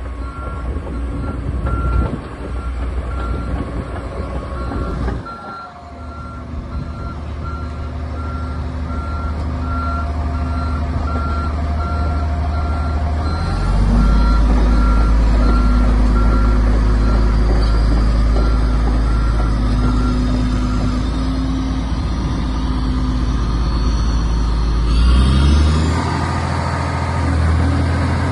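Komatsu D85EX-15 crawler bulldozer running and driving, its diesel engine making a steady heavy drone with a travel alarm beeping at an even pace until about three-quarters through. The engine gets louder about halfway in, and its note rises briefly near the end.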